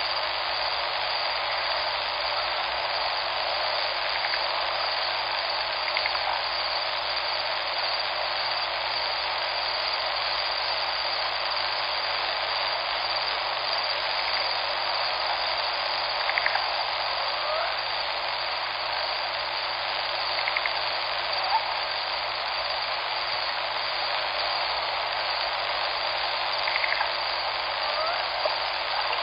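Steady rushing of flowing river water, an even hiss with no change, with a few short faint chirps standing out over it about halfway through and near the end.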